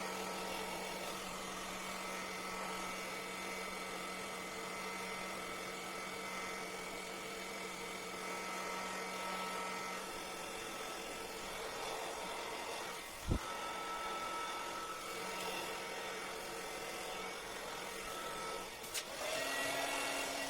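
Construction heat gun running steadily, its fan motor blowing hot air over freshly poured clear epoxy resin to pop air bubbles; a sharp click about two-thirds of the way through.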